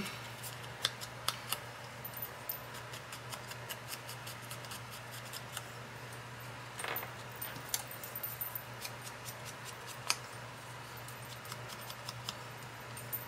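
Quiet paper-craft handling at a tabletop: scattered light clicks and taps of paper cutouts and small tools being handled, over a steady low hum.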